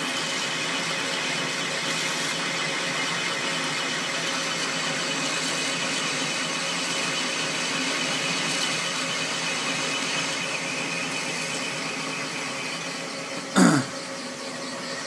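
South Bend 13-inch lathe turning 1117 steel at its slowest speed and feed, a high-speed steel bit taking a heavy 0.100-inch cut: a steady machine drone with a screeching sound from the motor's worn bearings, which need replacing. Near the end a brief, loud sound falls sharply in pitch.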